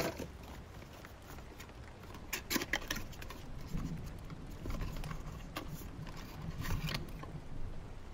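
Light clicks and short rustles of a book, pens and stationery being handled, a cluster about two and a half seconds in and a few more near five and seven seconds, over a steady soft rain-sound background.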